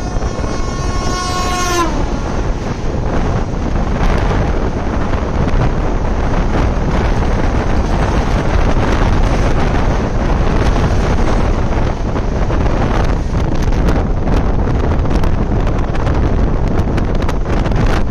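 A locomotive horn sounds for about two seconds and dips in pitch as it stops, then an oncoming passenger train hauled by a WAP7 electric locomotive rushes past close alongside, its coaches rumbling, with clicks of wheels over rail joints in the later part and wind on the microphone.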